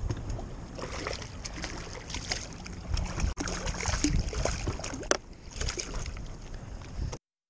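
Water splashing and sloshing beside a small boat as a hooked fish thrashes at the surface and is lifted clear on the line, with many short irregular splashes. The sound cuts off abruptly near the end.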